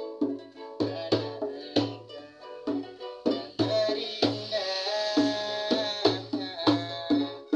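Ukulele strummed in chords alongside a hand-played goblet drum, the drum struck with the palm in a steady beat of about three strokes a second. In the middle the drum breaks off briefly while a long held note sounds over the strumming.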